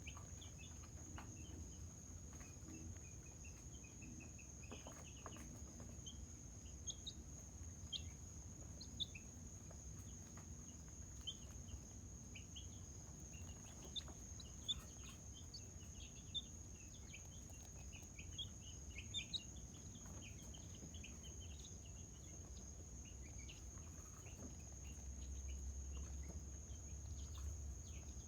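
Birds chirping in many short, scattered calls over a steady high-pitched insect buzz, with a low rumble underneath.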